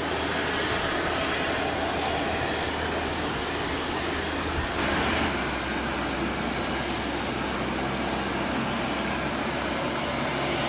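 Single turboprop engine of a Cessna Grand Caravan running steadily at low power as it taxis, mixed with the steady hiss of heavy rain.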